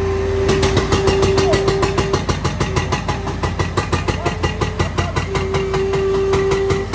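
Bobcat skid-steer loader's diesel engine running as its bucket scrapes up sod and soil. A steady whine drops out for a few seconds in the middle, and from about half a second in there is a rapid, even clatter of clicks, about seven a second.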